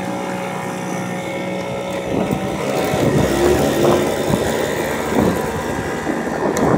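Motor scooter engine idling steadily, then pulling away about two seconds in and getting louder as it picks up speed, with wind rushing over the microphone.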